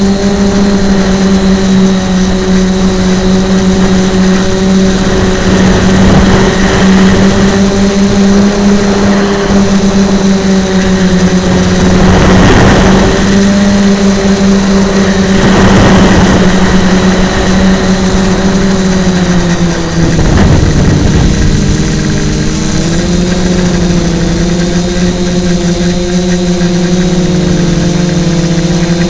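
Quadcopter's electric motors and propellers running close to the onboard camera, a loud steady buzzing hum. About twenty seconds in, the pitch wavers and splits into several tones as the throttle changes. There are several brief swells of rushing noise through the flight.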